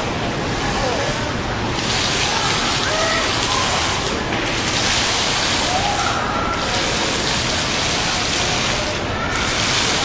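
Water fountain splashing, its hiss swelling and easing off again every couple of seconds, about four times.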